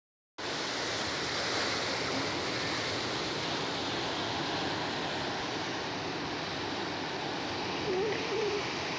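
Sea surf breaking and washing over a shore of rocks and concrete blocks, a steady rush of white water.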